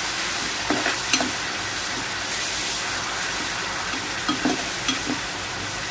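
Grated onion frying in hot oil in a kadai with a steady sizzle, being stirred with a metal spatula that scrapes and clicks against the pan a few times, about a second in and again after four seconds.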